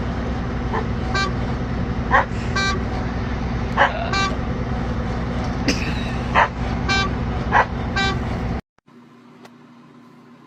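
Dog giving about a dozen short, sharp barks over a steady low vehicle engine drone. Both stop abruptly about 8.5 seconds in, leaving a faint hiss.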